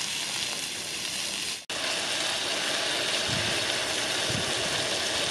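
Diced vegetables frying in hot oil in a pan, a steady sizzle, stirred with a spatula. The sound cuts out for an instant about a second and a half in.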